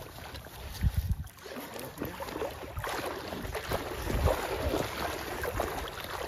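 A hooked coho salmon thrashing and splashing at the surface of shallow water, with wind gusts buffeting the microphone.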